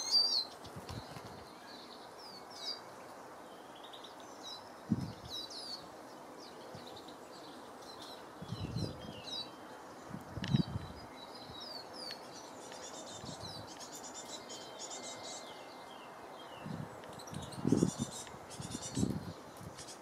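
Small songbirds chirping and twittering: a steady stream of short high calls and quick pitch slides, busiest near the end. Several brief low thumps stand out among them, over a steady low background noise.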